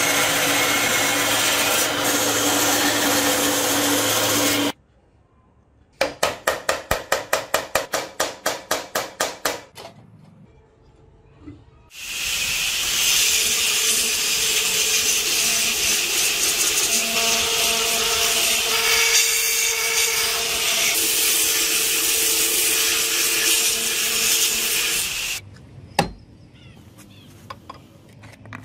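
A power tool running, stopping abruptly about five seconds in; then a quick run of rhythmic strokes, about four a second, for about four seconds. A belt grinder then runs steadily for about thirteen seconds with its abrasive belt grinding, followed by a single sharp knock and light ticking.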